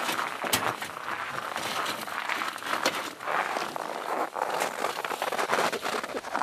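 Irregular scraping and crunching with many sharp clicks, from hands rummaging through snow-covered, burnt debris inside a burnt-out car shell.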